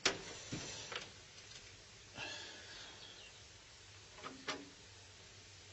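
A few sharp clicks and a short rustle from small parts being handled at a workbench: a click at the very start and another half a second later, a brief rustle around two seconds in, and two quick clicks past four seconds.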